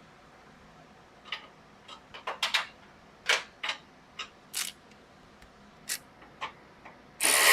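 A string of irregular metallic clicks and taps from hand tools being worked. Near the end a loud, steady power-tool noise starts abruptly.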